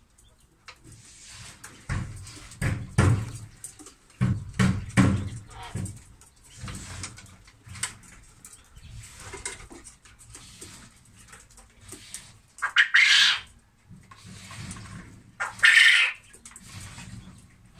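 Quail calling in their pen, with two loud, harsh calls of about a second each near the end. Irregular knocks and rustles come earlier.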